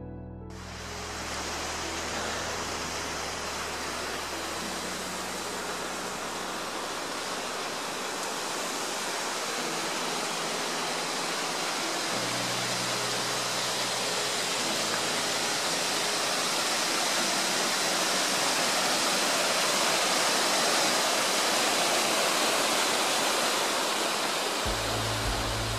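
Rushing water of a waterfall on a rocky mountain beck, a steady rush that swells gradually and peaks about three-quarters of the way through. Soft background music with low sustained notes plays faintly underneath.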